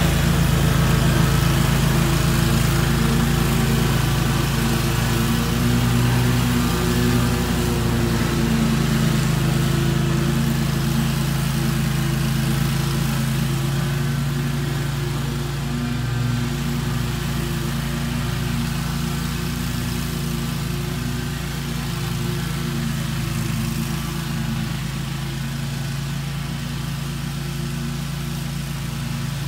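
Engine of a Cub Cadet Tiger Cat II zero-turn riding mower running steadily under load while cutting thick grass, growing gradually fainter as the mower drives away.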